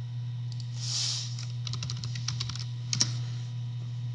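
Typing on a computer keyboard: a quick run of about ten keystrokes, then one louder key press near the end, the Enter key sending amazon.com into the browser's address bar. A brief soft hiss comes about a second in, and a steady low hum runs underneath.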